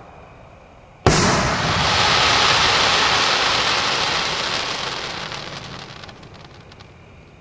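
Aerial firework shell bursting sharply about a second in, followed by a long hissing, sizzling tail that slowly fades, with scattered crackles near the end.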